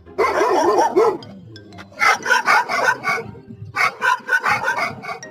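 A dog barking: a loud outburst in the first second, then two runs of quick, repeated barks.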